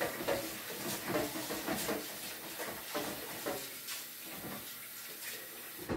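Light knocks and scraping of kitchen things being handled at the sink, over a steady hiss.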